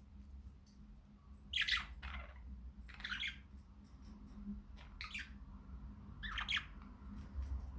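Pet budgerigars calling: about four short, harsh chirps that fall in pitch, a second or two apart, over a faint low hum.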